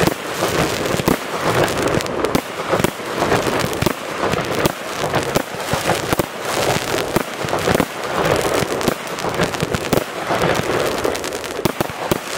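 Fireworks display going off: a dense, continuous barrage of bangs and crackling from bursting shells, with no let-up.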